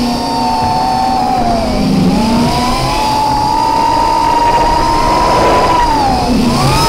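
Small FPV racing quadcopter (Eachine X220) in flight, its brushless motors and propellers whining, heard from the onboard camera. The whine's pitch falls as throttle is eased about one and a half seconds in, climbs back and holds steady, then dips and rises again near the end, over a rushing noise.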